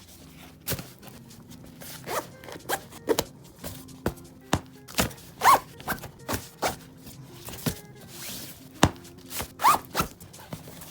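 Background music under a run of sharp zip-like rips and knocks as packaging and purchased items are opened and handled.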